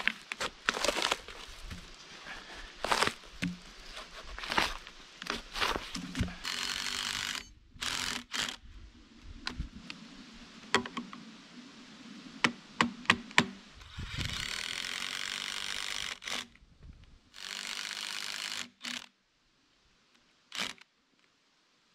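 Tough aspen bark being pried and peeled off a log with a knife: a run of cracks, scrapes and knocks. Then a cordless drill runs in a few short bursts, driving screws to fix a chainsaw mill's guide bracket to the end of the log.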